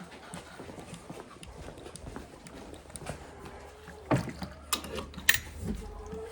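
Scattered light knocks and clunks from a chicken waterer being handled, with a few louder, sharper knocks about four to five seconds in.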